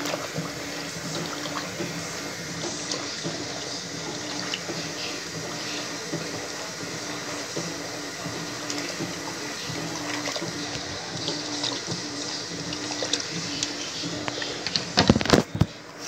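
Electrolux Turbo 12 kg top-loading washing machine filling with water while its agitator churns the load back and forth, water splashing and sloshing over a motor hum that pulses about twice a second. A few loud knocks come near the end.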